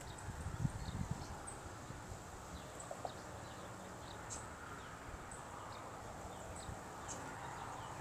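Wind buffeting the microphone as a low gusty rumble, strongest about half a second in, with short high bird chirps scattered throughout.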